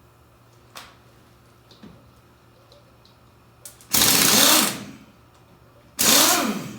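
Power impact wrench with a 14 mm socket driving ATV lug nuts in two bursts just under a second each, about two seconds apart; the second spins down with a falling pitch. A few faint knocks come before them.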